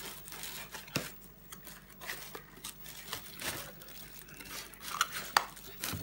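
Plastic wrapping crinkling and a cardboard box rustling as a wrapped object is pulled out of it, with a few sharp taps and knocks about a second in and twice near the end.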